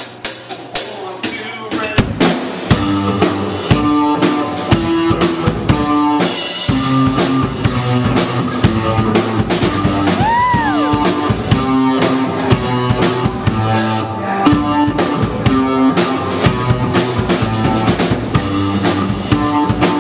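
A live rock band plays with electric guitar, bass guitar and drum kit. For about the first two seconds the drums play mostly alone with sharp cymbal ticks, then the guitar and bass come in over a steady rock beat.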